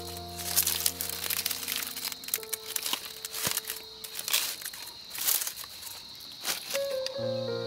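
Baked leaf wrapping crinkling and tearing as hands peel it open from around a cake, in irregular crackles. Soft background music of held notes is under it near the start and again near the end.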